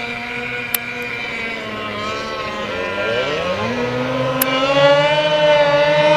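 Small outboard racing boat's engine running at speed, a steady high-pitched tone; about three and a half seconds in the pitch sweeps down and then settles higher, and the engine grows louder toward the end. Two brief clicks, near the start and about four seconds in.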